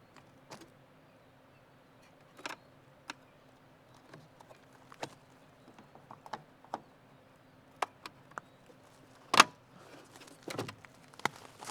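A series of irregular sharp clicks and knocks, loudest about nine seconds in and bunched closer together near the end, over a faint low steady hum.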